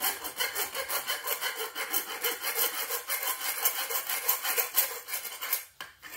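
The cut end of a quarter-inch fuel line is rubbed back and forth across a flat file in quick rasping strokes, squaring off and deburring the cut before it is flared. The filing stops a little before the end, followed by a couple of light clicks.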